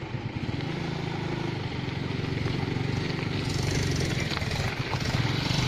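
Suzuki scooter's single-cylinder engine running and getting louder as it pulls away, with wind noise building on the microphone about three and a half seconds in.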